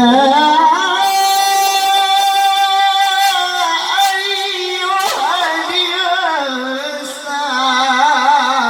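Qur'an reciter's voice in a long, drawn-out melodic line of tilawah recitation. It glides up into a held high note, then moves through sustained tones that waver with ornaments in the second half.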